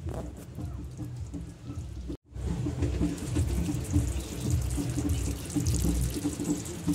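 Steady rushing, watery noise, like running water. The sound cuts out completely for a moment about two seconds in, then comes back a little louder.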